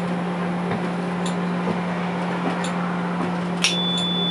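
Škoda 15TrM trolleybus standing still, its onboard electrical equipment giving a steady low hum with faint ticks about once a second. Near the end, a click and then a continuous high beep starts.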